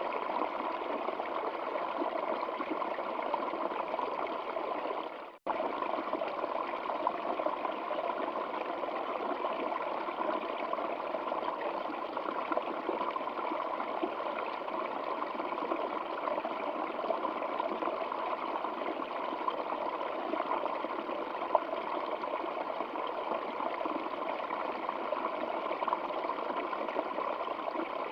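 Stream water flowing steadily, an even rushing and trickling, with the sound cutting out for an instant about five seconds in.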